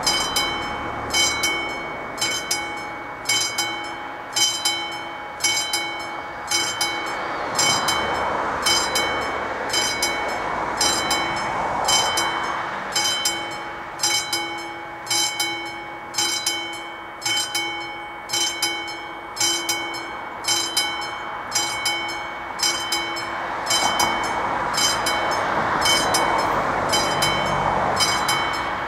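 Level-crossing warning bell of an AŽD 71 signal, a classic electric striking bell, ringing in a steady repeated rhythm, each stroke ringing on. The crossing is active, warning of an approaching train.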